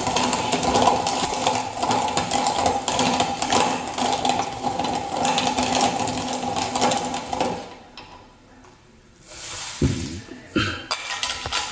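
Hand-cranked meat grinder being turned, a continuous whirring grind that stops about seven and a half seconds in. A few knocks follow near the end.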